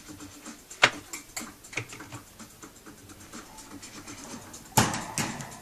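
Irregular light clicks and scratches of pet rats clambering about a wire cage, with a sharp knock about a second in and a louder clatter near the end.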